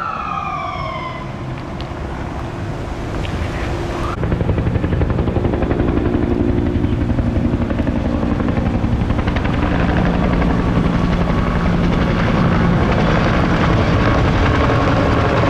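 A siren fading away and gliding down in pitch during the first second or so, then a Bell UH-1 Huey firefighting helicopter flying overhead, its rotor and engine running steadily and loudly.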